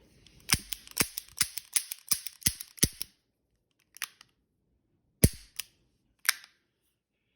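Sharp metallic clicks of a High Standard Double Nine .22 revolver's double-action mechanism being worked on an empty gun: a quick run of about a dozen clicks in the first three seconds, then four single clicks spaced out after.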